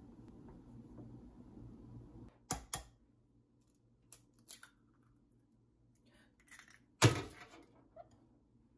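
Sharp knocks on a ceramic mixing bowl: two quick taps about two and a half seconds in, a few light clicks, then one loud crack with a brief ring about seven seconds in as an egg is cracked on the bowl's rim.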